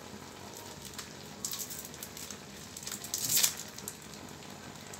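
Mixed vegetables sizzling and crackling in a hot wok, with louder spells of crackling about a second and a half in and again just after three seconds.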